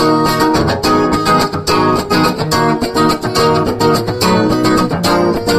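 Acoustic guitar strummed in a steady rhythm, an instrumental break between sung verses.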